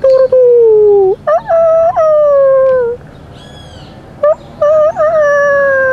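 Roosters crowing three times in quick succession, each crow a few short notes run into one long, falling final note. Fainter, higher calls from another bird come in between.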